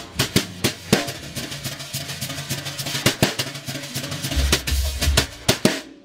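Snare drum with Austrian Drumhead Company calfskin heads, top and bottom, played with wire brushes: continuous swishing strokes with many sharp taps and accents. A low boom sounds about four and a half seconds in.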